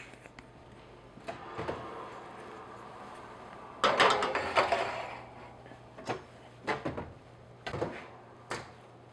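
A metal muffin pan sliding onto a wire oven rack with a scrape and rattle about four seconds in, then the oven door swinging shut with a few short knocks.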